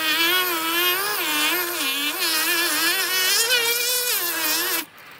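A small electric motor spinning a rubber sewing-machine friction wheel while 150-grit sandpaper is pressed against the rim, sanding down the flat spot left by storage against the hand wheel. A steady motor tone runs under a whine whose pitch wavers up and down as the pressure changes, and it cuts off suddenly near the end.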